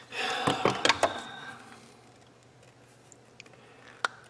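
A few sharp clicks with a short rustle of small tools being handled during circuit-board soldering work, then quiet with one more click near the end.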